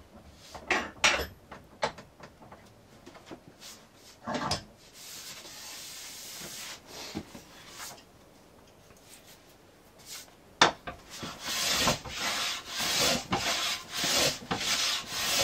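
Hand plane taking short strokes across a wooden board to plane down its marked high spots and flatten it. A few separate strokes come first, then from about ten seconds in a quick run of shaving strokes follows.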